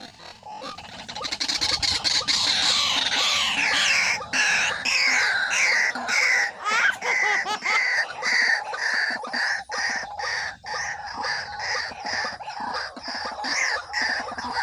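White-breasted waterhen calling: loud repeated harsh notes that build up about a second in, then come about twice a second.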